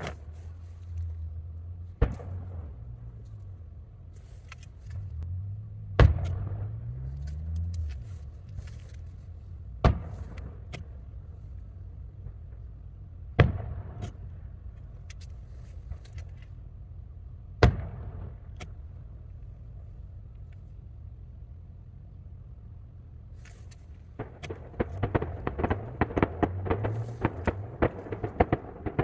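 Distant aerial firework shells bursting: five separate booms about four seconds apart, then from about 24 seconds in a rapid crackling of many small reports. A low hum runs underneath. The recording is played back at three times speed.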